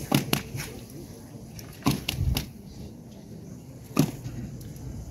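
Wind rumbling on the microphone, with a handful of sharp knocks scattered irregularly through it, the loudest about two and four seconds in.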